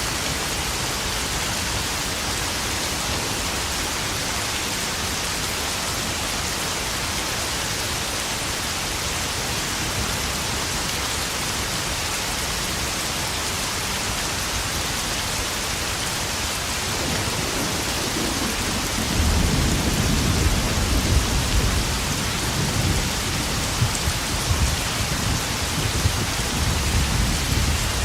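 Heavy spring rain pouring and drumming on puddles, a steady hiss. About two-thirds of the way through, a long rolling rumble of thunder builds and keeps going, with louder swells, until near the end.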